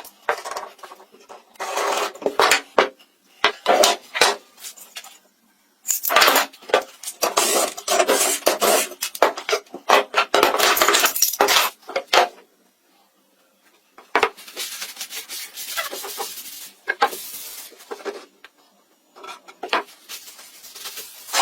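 Hand work on wood: bursts of scraping and rubbing mixed with sharp clicks and clatters, going on and off every second or two, with a pause of about two seconds about twelve seconds in.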